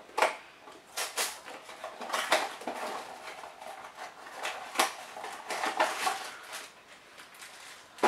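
A small cardboard blind box being handled and opened, then the foil bag inside it crinkling: irregular scratchy rustles and crinkles with a few light taps.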